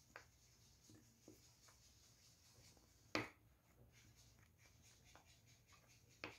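Faint scraping of a metal spoon stirring an egg into dry tapioca starch in a glass bowl. There is a sharp clink of spoon against glass about three seconds in, another near the end, and a few lighter taps in between.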